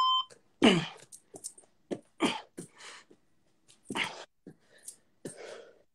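Person breathing hard under exertion: about eight short, sharp exhales at uneven intervals, the first with a brief grunt.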